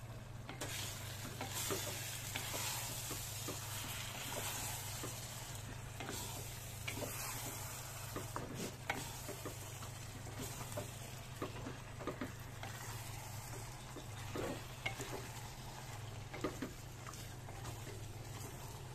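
Duck pieces sizzling in a clay pot while a wooden spatula stirs and scrapes through them and the dark soy sauces, with frequent short knocks of the spatula against the pot. A low steady hum runs underneath.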